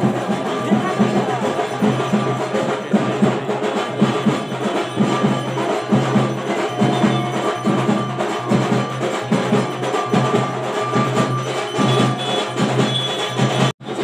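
Percussion music with bell-like metallic strikes over a steady beat. It cuts out for a moment near the end.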